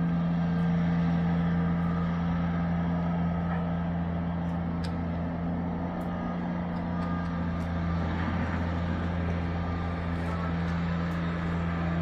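Car engine and road noise heard from inside the cabin: a steady low drone that holds one pitch, over an even hiss.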